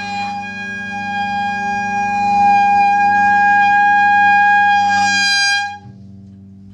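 One long held note on a wind instrument, with a bright overtone-rich tone. It gets louder about two seconds in and cuts off just before six seconds, leaving a faint low hum.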